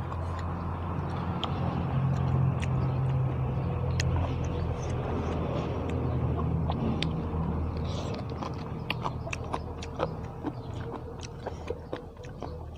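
Chewing and crunching with many small sharp clicks, over a low vehicle-like rumble that fades away about two thirds of the way through.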